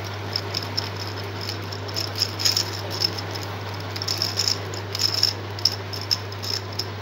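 Plastic gear cube being twisted in the hands: irregular clicking and rattling of its gears as the faces turn, over a steady low hum.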